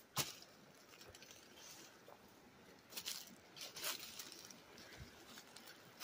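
A few brief crunches and rustles of footsteps through dry brush and leaf litter, the loudest about three and four seconds in.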